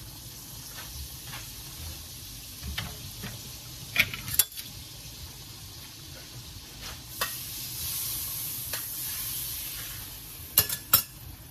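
Tilapia in cream sauce bubbling and sizzling in a pan on a gas burner, a steady hiss that swells for a few seconds past the middle. A few sharp kitchen clinks cut through it, two about four seconds in and a pair near the end.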